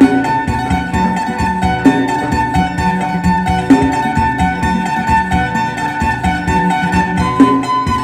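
Isan phin, the Thai-Lao plucked lute, playing a fast lam sing tune with a steady high drone note, over a backing with a strong accent about every two seconds. The held high note steps up in pitch near the end.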